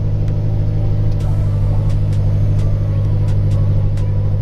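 BMW E70 X5M's twin-turbo V8 idling steadily, heard from inside the cabin.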